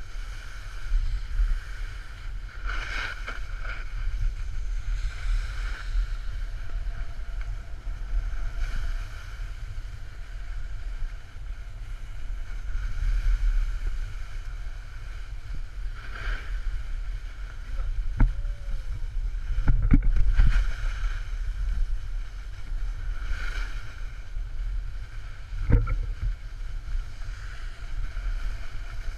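Wind buffeting the microphone of a camera travelling downhill, a steady low rumble with the hiss of edges scraping over packed snow swelling and fading every few seconds. A few sharp knocks come in the second half.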